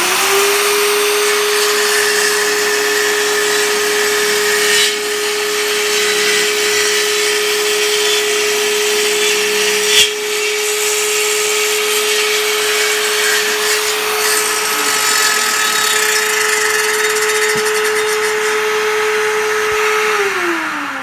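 Circular saw running at a steady, high pitch, then switched off near the end, its whine falling as the blade winds down.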